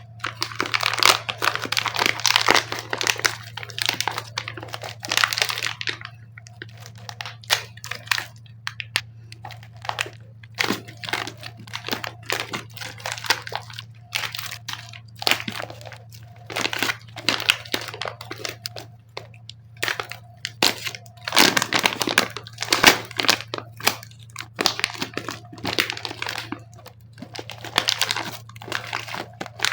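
Plastic clay packaging crinkling and crackling in irregular bursts of rustles and sharp clicks as it is handled and opened, over a faint steady low hum.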